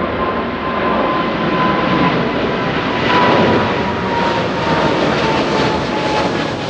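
Jet airliner's engines passing close, a loud steady roar with a whine that slowly drops in pitch.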